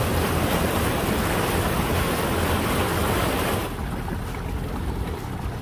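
Small boat under way on a reservoir: a steady low motor rumble under a loud rush of wind and water, which drops off sharply a little past halfway while the rumble goes on.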